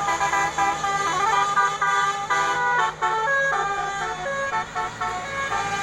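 Indonesian bus 'telolet basuri' multi-tone horn playing a tune, its notes stepping up and down several times a second, over a steady low hum.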